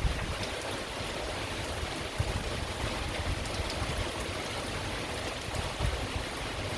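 Heavy thunderstorm rain pouring steadily, with scattered individual drop hits and an uneven low rumble underneath.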